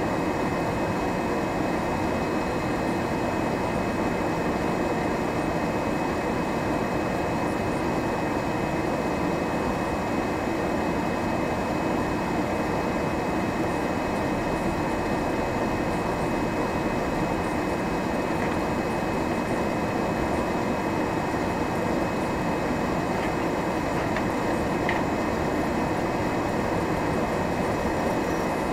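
Steady engine and road drone heard from inside a vehicle's cab as it crawls and idles in slow traffic on a snowy road.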